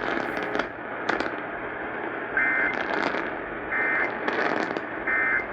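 AM radio static hisses and crackles, then come three short warbling two-tone data bursts, evenly spaced about a second and a half apart. These are the Emergency Alert System end-of-message code bursts that close the warning.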